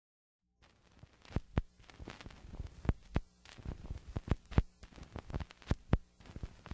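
Irregular sharp clicks and taps, some louder than others, over a faint low hum.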